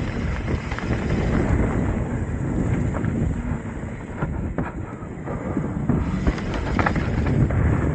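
Wind buffeting the camera microphone over the rumble of a Trek Top Fuel 8 mountain bike's tyres and frame on a fast forest-trail descent. Sharp clattering knocks come in the second half, as the bike runs across wooden boards.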